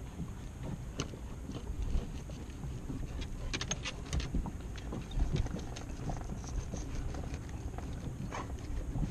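Wind buffeting the microphone as a low rumble, with scattered light clicks and taps, a small cluster of them about halfway through.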